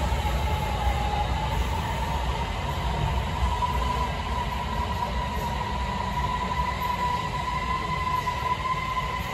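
Beijing Subway Line 8 train pulling into the station and slowing, a low rolling rumble with a steady whine running through it.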